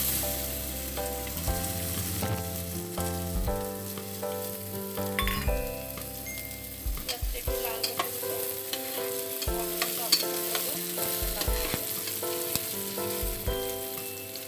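Chopped onions sizzling as they fry in hot oil in a non-stick pot, with a spatula stirring and scraping against the pan. A light background melody plays along.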